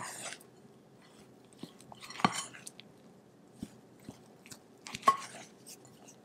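Silicone spatula folding sifted cake flour into thick meringue batter in a glass bowl: soft scraping and squelching strokes. Two louder strokes come about two and five seconds in, each opening with a sharp tick.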